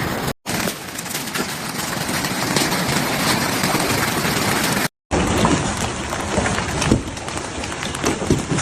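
Hailstorm: hail and rain pelting hard surfaces in a dense rush of small rapid impacts over steady storm noise. The sound cuts out abruptly twice, about a third of a second in and again near five seconds in, where clips are joined.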